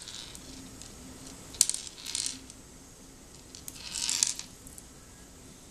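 Small pearl beads on nylon thread clicking and rattling against a tabletop as the thread is drawn through them. There is a sharp click about one and a half seconds in, and a longer rattle of beads about four seconds in.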